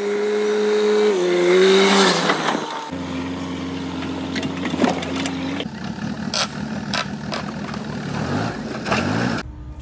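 Diesel engines of a JCB 3DX backhoe loader and farm tractors running, heard in short clips joined by abrupt cuts. In the first clip the engine's pitch drops about a second in, and a few sharp clicks come through later on.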